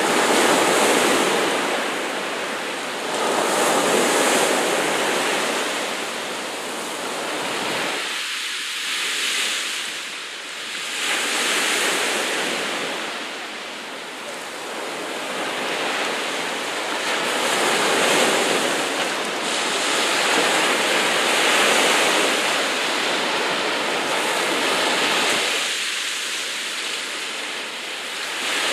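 Sea waves washing and breaking, a steady rushing noise that swells and eases every few seconds.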